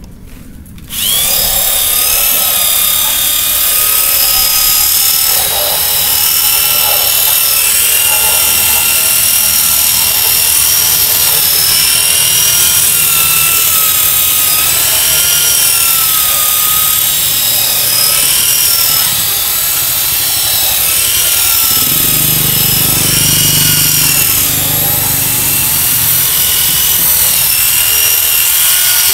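Corded electric drill spinning a round scrubbing brush against a wet carpet: a loud, steady motor whine that starts about a second in, its pitch dipping and recovering as the brush is pressed down. A deeper rumble joins for a few seconds past the two-thirds mark.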